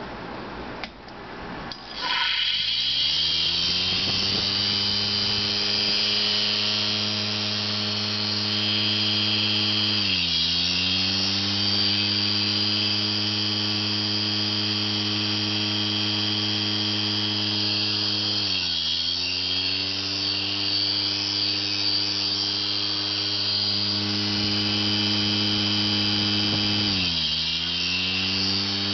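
An opened old hard drive's spindle motor spinning up about two seconds in, then running with a loud high whine over a buzzing hum, its platter set off balance. The pitch sags and climbs back three times, about eight seconds apart.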